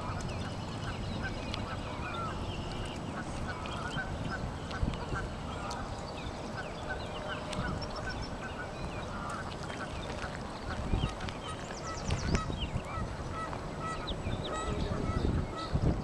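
Waterfowl honking and many short bird chirps scattered throughout, over a steady outdoor background. Low rumbles of wind on the microphone come in past the middle and again near the end.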